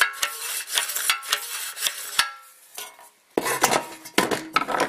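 Rapid, irregular metallic clicking and clattering from a lawnmower's recoil pull starter as the cord is pulled and the starter pawls catch the flywheel cup. It stops about two seconds in, and after a short lull there is a burst of louder knocks and rattles.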